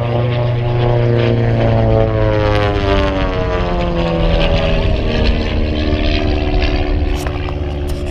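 Propeller airplane flying past loud, its engine drone falling in pitch as it goes by.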